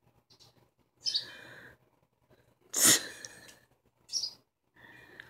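Short bird chirps, four in all, with one louder, harsher burst about three seconds in.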